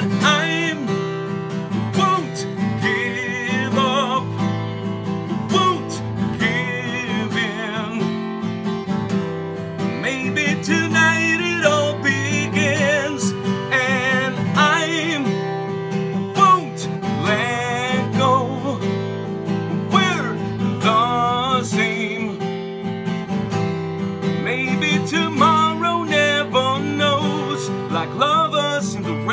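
Acoustic guitar strummed live, with a male voice singing a wordless, wavering melody over it, picked up by a camera's own microphone.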